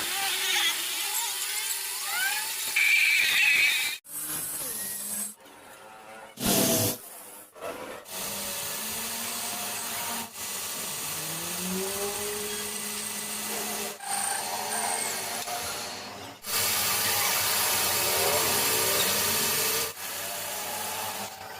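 Metalworking machinery, a lathe and power tools cutting and grinding metal, in a run of short clips that change abruptly every few seconds. There are some rising and falling whines along the way.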